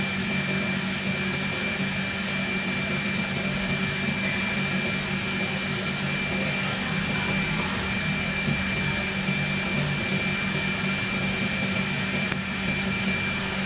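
Handheld electric massager running steadily, a constant motor whir with a low hum and a thin high whine, as it vibrates over the back during chest physiotherapy to loosen phlegm.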